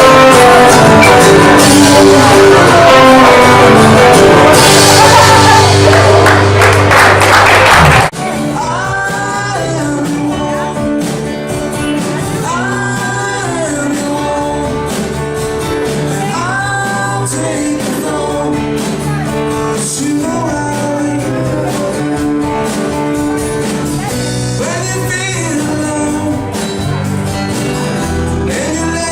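Live rock band playing with a singer. About eight seconds in the sound cuts abruptly to a quieter passage with sung phrases over the band.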